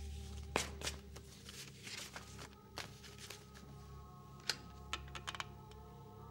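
Papers and newspaper handled on a desk: soft rustling with scattered light clicks, over a steady low hum. Near the end a telephone handset is lifted from its cradle.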